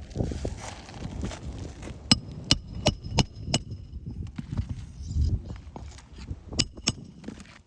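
Hammer driving roofing nails through an asphalt shingle: five quick ringing strikes, then two more near the end.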